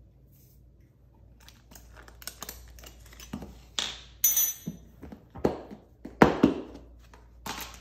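A string of clicks, knocks and rustles from kitchen handling: a metal measuring spoon clinking, then a plastic storage bin set down on a stone countertop and its lid opened. The loudest knock comes about six seconds in.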